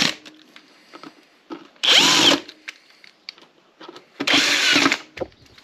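18-volt cordless drill-driver running twice in short bursts, each under a second and rising in pitch as the motor spins up, driving screws into the plastic bottom-bracket cover of an e-bike. Small clicks of the bit and screws fall between the bursts.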